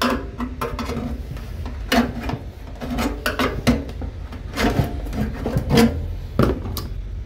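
Flat screwdriver prying and scraping at the pressed sheet-metal bottom cover of a microwave oven: an irregular run of metallic clicks, knocks and scrapes as the panel edge is worked loose.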